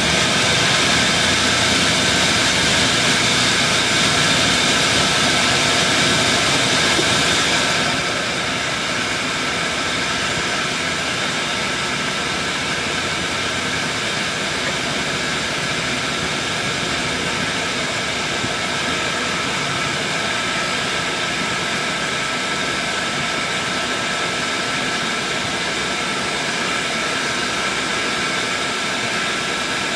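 Electric kitchen blender running continuously, a steady motor whine over a noisy rush, blending onions, garlic and lemon. About eight seconds in it eases slightly in loudness and keeps running.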